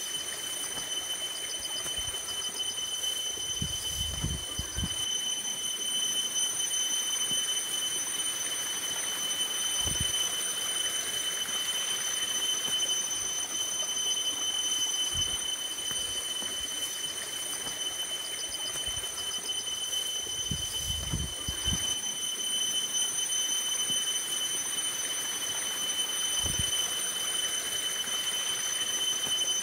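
Steady rush of running water, with a constant high-pitched whine over it. There are brief clusters of dull low thumps about four seconds in and again about twenty-one seconds in.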